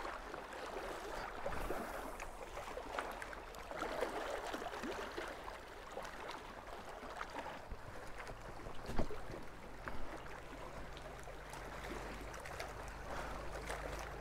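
Small waves lapping against a rocky shoreline, with scattered crunches and knocks of footsteps on loose stones. A sharper knock comes about nine seconds in and another about a second later.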